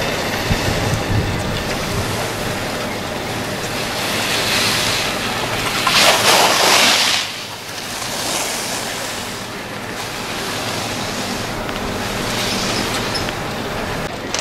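Skis sliding and scraping over packed snow as the skiers run downhill, mixed with wind on the microphone; a louder, longer scrape swells about six seconds in and cuts off sharply a second later.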